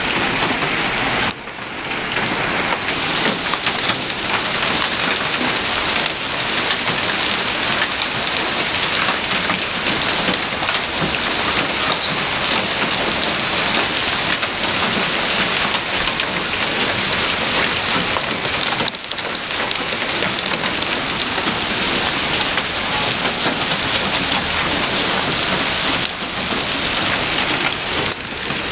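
Heavy hailstorm with rain: a loud, dense, continuous pelting of hailstones hitting car bodies and the pavement.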